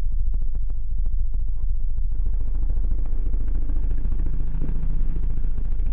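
A steady low rumble, with a run of faint rapid clicks in the first two seconds, then a low engine-like hum that wavers briefly near the middle.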